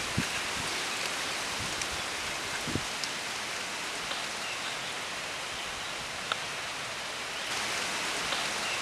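Steady outdoor background hiss, with a few faint clicks as a knife pries apart a fire-roasted coconut shell and the halves are handled.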